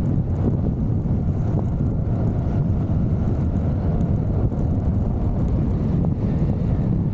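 Wind rushing over the microphone over the steady drone of a Vespa GTV 300 scooter's single-cylinder engine, ridden at an even speed.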